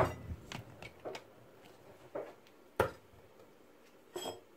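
A few light knocks and clicks as raw beef shank is moved from a plate into a stainless steel cooking pot, with one sharper tap about three seconds in.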